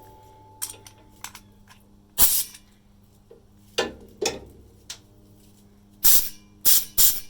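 Sharp clicks and short puffs of compressed air from a 1/4-inch quick-disconnect coupling on the air system of a Unimog 1300L, as it is connected and disconnected. There are several separate pops, the loudest a little after two seconds and three close together near the end, over a low steady hum.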